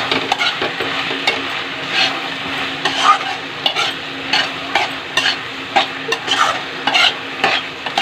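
Softened onions, tomatoes and green chillies sizzling in a kadai while being stirred, with repeated quick scrapes of the utensil against the pan over a steady frying hiss.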